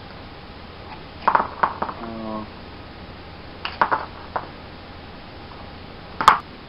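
Short clusters of light clicks and knocks from a homemade boilie cutter being worked, its wooden pusher driven through the tube against the utility-knife blade, cutting boilie paste into pieces. The clicks come in three groups, about a second in, near four seconds in, and a single sharper click near the end, which is the loudest.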